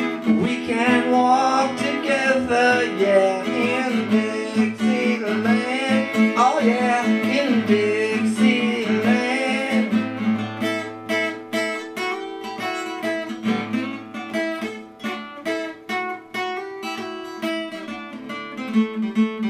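Acoustic guitar strummed in a steady rhythm, with a man's wordless singing over it for roughly the first half. After about ten seconds the guitar plays on alone, softer and in separate picked strokes, closing out the song.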